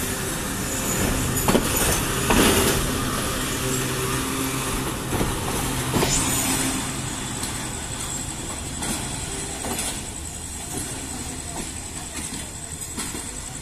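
Pakistan Railways passenger coaches running past and pulling away, wheels knocking over the rail joints. The clatter fades from about halfway through as the end of the train recedes.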